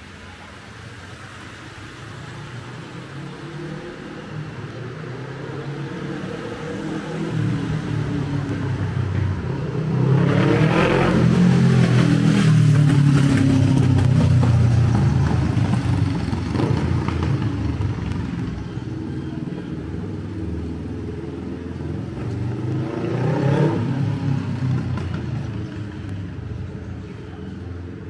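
A motorcycle's engine draws closer and passes close by, its sound building up, loudest around the middle, with the pitch bending as it goes past and then fading. A second, quieter vehicle passes a few seconds before the end.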